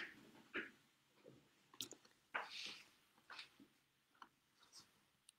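Near silence broken by a few faint, scattered mouth clicks and lip noises, with a soft breath about two and a half seconds in.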